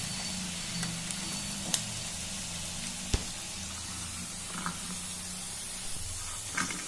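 Chicken pieces deep-frying in hot oil, a steady sizzle, with a couple of sharp clicks of the wire mesh strainer against the pan.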